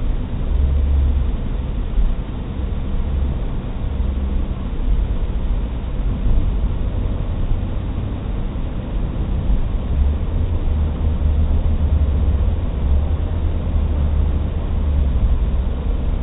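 Steady low rumble of a car being driven, heard from inside the cabin: engine and tyre noise with no sudden events.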